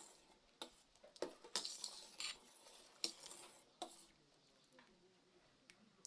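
Light clinks and scrapes of utensils on cooking pots: a handful of short knocks in the first four seconds, then only a few faint ticks.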